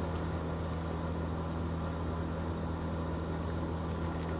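Steady low hum of the Ekomobiili wood gasifier's blower running during heat-up, with an even hiss over it.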